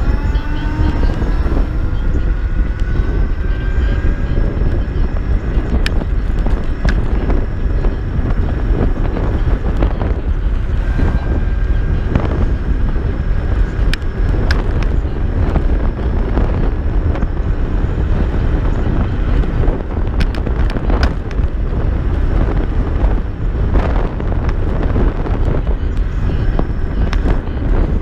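Wind buffeting the microphone on a moving Kaabo Mantis Pro electric scooter, over a thin whine from its hub motors that rises in pitch in the first couple of seconds as it speeds up, then holds steady. Scattered sharp knocks and rattles from the scooter on the rough road.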